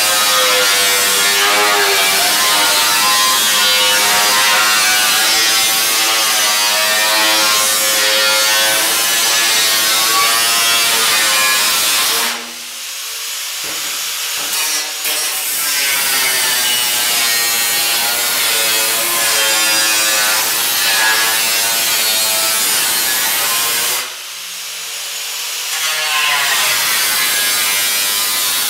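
Angle grinder cutting through the truck's sheet steel, its motor whine wavering in pitch as the disc bites. Twice, about 12 s and 24 s in, the sound drops away abruptly and then builds back up.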